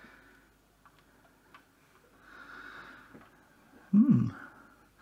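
Two faint plastic clicks as a ribbon-cable connector is worked loose, then a long breath out, and a short voiced hum from the man about four seconds in.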